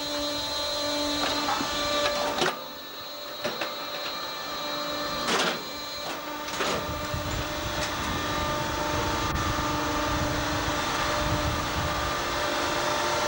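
Hydraulic sugar-beet sampling probe working over a trailer load of beets: a steady mechanical whine with several sharp knocks. A low rumble joins it about halfway through.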